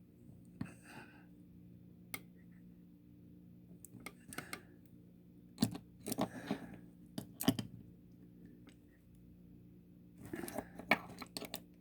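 Gerber multi-tool working on a small die-cast metal toy: scattered clicks, snips and short crunching scrapes in a few clusters with pauses between them.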